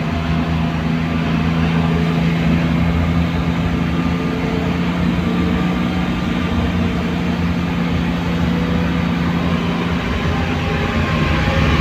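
Vehicle engine and tyre-on-road noise heard from inside the cabin while driving, a steady low hum.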